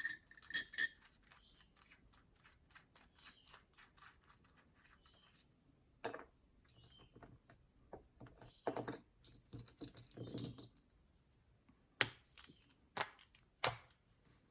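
Small metal tools and lock parts being handled at a workbench: a short metallic ring at the start, then faint ticking and a handful of separate sharp clicks and clinks.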